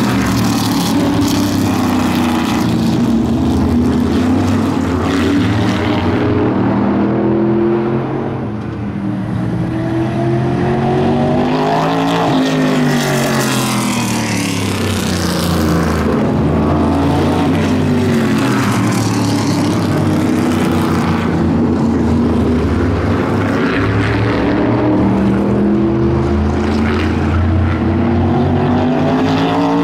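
Vintage modified race car engines running at speed around an oval track, with cars passing close by. The engine pitch rises and then falls as cars go past, about twelve seconds in and again near the end.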